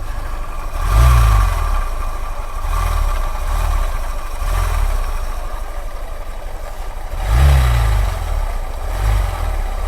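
Honda SP 125's air-cooled single-cylinder engine running and blipped twice, about a second in and again near the end, with a rough 'ghar ghar' rumbling from inside the engine: the sign of a broken camshaft bearing whose balls have fallen out.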